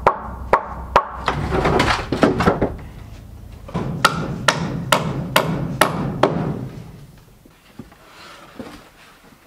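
Hammer driving nails through rough-sawn live-edge siding boards into a log-pole frame, with sharp blows about two a second. There are two runs of blows with a pause of about a second between them, and they stop about six seconds in.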